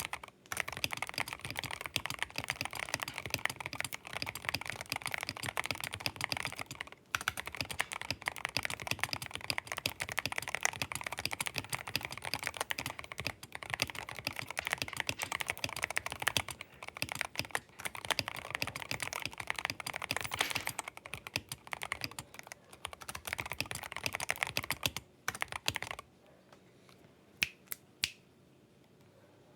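Fast continuous typing on a Royal Kludge RK84 mechanical keyboard with Tecsee Blue Velvet switches and PBT XDA-profile keycaps, foam-dampened with clipped stabilisers. The typing pauses briefly a couple of times, stops near the end, and is followed by a few single key presses.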